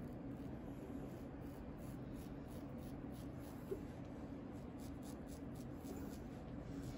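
Straight razor scraping over facial stubble in a series of short, quick strokes, a soft rasping over a steady low hum.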